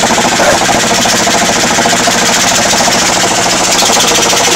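High-frequency chest wall oscillation vest (a cystic fibrosis 'beating vest') running, a loud, rapid, even pulsing over a steady hum, as its air pulses shake the chest during airway-clearance therapy.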